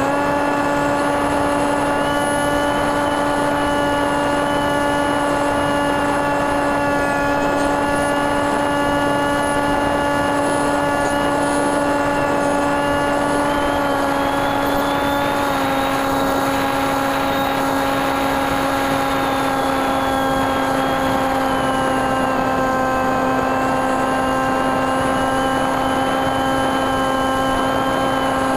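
Brushless electric motor turning an 8x6 propeller, heard from the aircraft's own onboard camera: a steady propeller drone at constant throttle over a rush of air. The drone dips slightly about halfway through and comes back up near the end, and a fainter high whine rises and falls.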